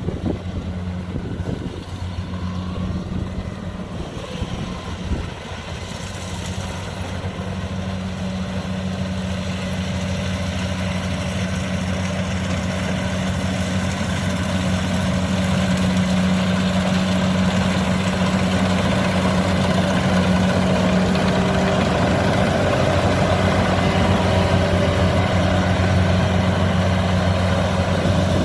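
Kubota DC-70 rice combine harvester's diesel engine running steadily with a constant low hum, growing gradually louder over the first half and then holding.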